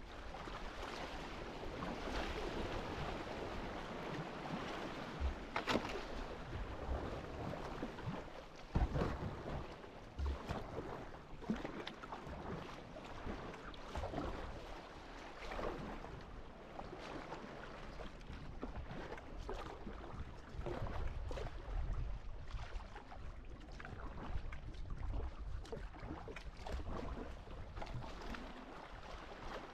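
Sea kayak under way: paddle blades splashing into the water stroke after stroke over the wash of small waves, with a few dull knocks, the loudest about nine seconds in.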